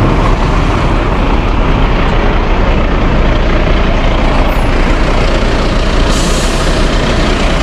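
Heavy rain and wind pounding the microphone in a steady loud rush, over the low running of a fire engine. A brighter hiss comes in about six seconds in.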